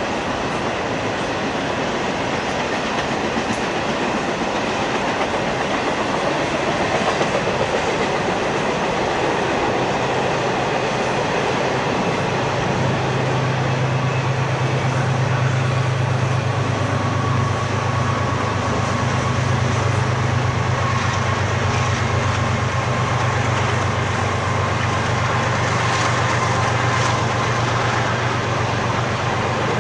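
Double-stack container freight train rolling past: steady, loud noise of steel wheels running on the rails. A low steady hum joins in about twelve seconds in.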